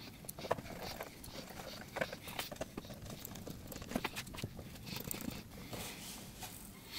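Quiet, scattered light clicks and taps from hands handling a plywood top panel on a PC case mock-up and picking up screws and a screwdriver to fix it down.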